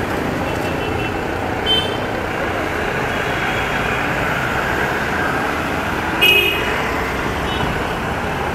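Steady road traffic of cars and motorbikes passing on a city street, with short vehicle horn toots: a brief one about two seconds in and a louder one about six seconds in.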